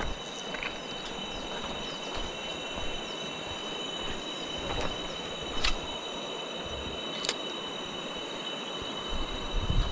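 Rushing water of a river rapids under a steady, shrill chorus of insects, with a few sharp clicks in the middle and a low thump near the end.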